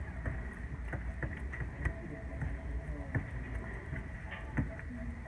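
Ink bingo dauber tapping down on paper bingo cards, several short taps about a second apart, over a steady low background rumble.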